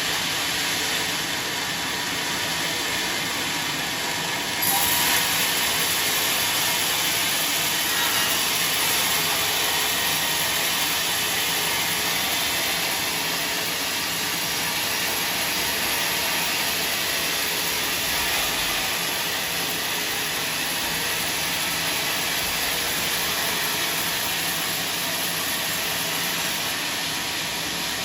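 Sawmill machinery running with a steady, noisy hiss; the hiss gets brighter and a little louder about five seconds in.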